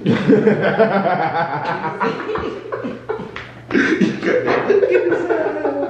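Indistinct young men's voices making vocal noises without clear words, mixed with a few sharp clicks.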